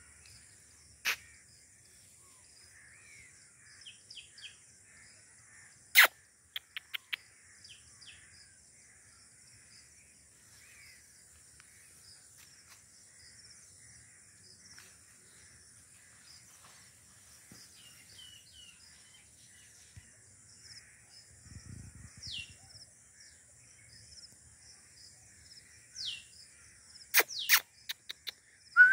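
Outdoor garden ambience: scattered bird calls over a steady high buzz. A few sharp clicks stand out, and several short falling whistles come in the last third.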